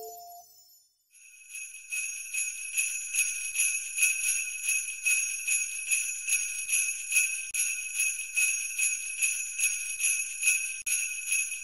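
Sleigh bells shaken in a steady, even rhythm, coming in about a second in after a short gap as the last note of a light tune dies away.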